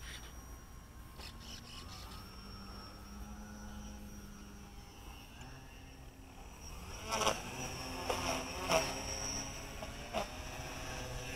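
Electric motor whine of a Hobby King brushless Catalina model seaplane, a thin buzz whose pitch glides slowly up and down with the throttle. It grows louder in the second half, with a few short noisy bursts.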